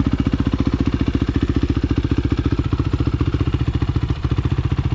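Honda CRF450 single-cylinder four-stroke engine in a Suzuki LTR450 quad idling steadily with an even, rapid pulse, just after a cold-morning start.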